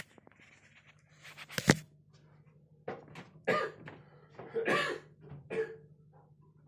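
A person coughing: one sharp, loud cough about two seconds in, then a run of several shorter coughs over the next three seconds.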